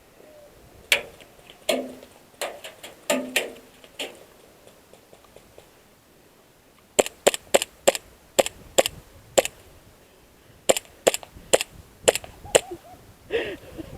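Airsoft pistols firing in a skirmish: sharp snapping shots, a few scattered at first, then two quick strings of about half a dozen to eight shots each.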